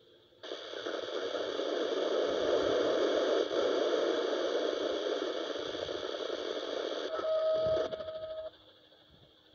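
CB radio receiving a noisy FM signal on 26.865 MHz: a loud static hiss opens about half a second in and runs for about eight seconds. A short steady beep sounds near the end, then the signal cuts off suddenly.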